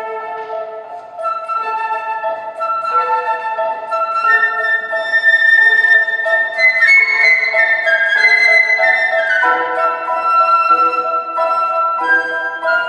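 Concert flute playing a melody over grand piano accompaniment: a classical sonata for flute and piano in performance.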